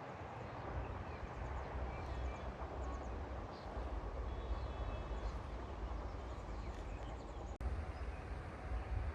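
Low outdoor rumble with scattered short bird chirps over it, broken by a brief sudden dropout about three-quarters of the way through.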